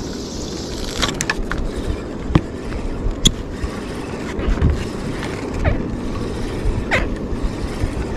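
Steady low rumble of a fishing boat's engine running, with a few short sharp clicks and knocks scattered through it.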